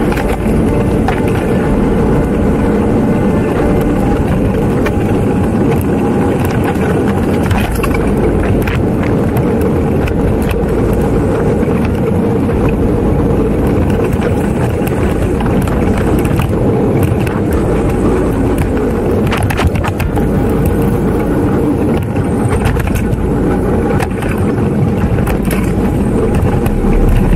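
Wind buffeting the microphone of a bike-mounted action camera while bicycle tyres roll over a rough gravel and dirt track, with frequent small clicks and rattles from the bike over the stones.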